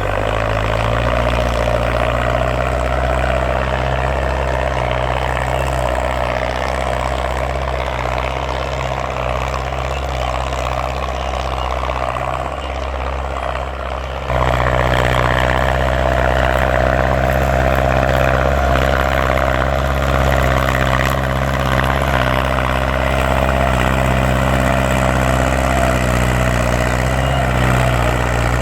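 Ford farm tractor engine running loud and steady at an even speed. About halfway through it suddenly gets louder, with no change in pitch.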